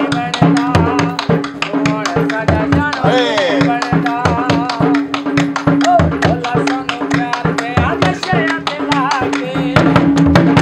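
Lively dance music with a fast, steady drum beat over a held low drone, and a wavering melody running over the top.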